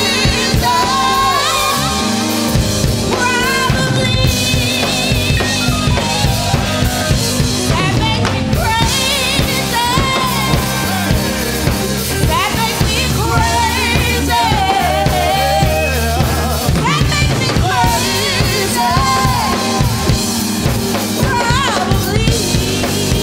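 Live band music: a drum kit keeping a steady beat with an electric bass underneath, and a female lead singer belting long notes with a wide vibrato.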